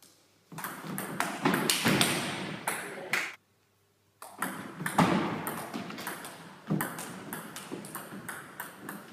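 Table tennis ball clicking quickly back and forth off rubber bats and the table in two rallies, broken by a brief silence about three and a half seconds in.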